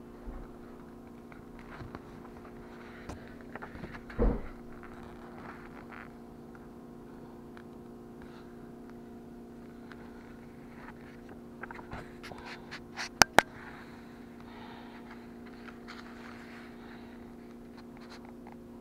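Pages of a paper recipe booklet being handled and turned, with soft rustling and scraping, one louder thump about four seconds in and two sharp clicks later on, all over a steady low electrical hum.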